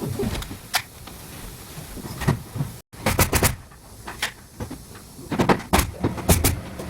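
Scattered sharp knocks and clicks over a low rumble. The sound cuts out completely for an instant about three seconds in, and a quick cluster of knocks follows.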